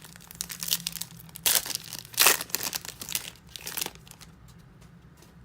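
Foil wrapper of a trading card pack crinkling and tearing as it is ripped open, loudest about two seconds in.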